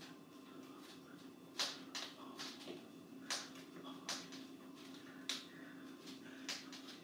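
Sneakers scuffing and tapping on a hardwood floor as a man dances, in sharp irregular clicks and scuffs about every half second to second, over a steady low hum.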